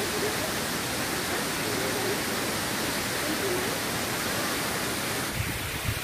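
Mountain waterfall pouring down a steep rock face, a steady, even rush of falling water.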